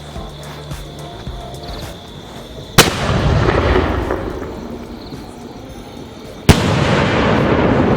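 A 5-inch aerial firework shell (skyshot) going off: two sharp bangs about four seconds apart, each followed by a long rushing, rumbling noise that fades slowly.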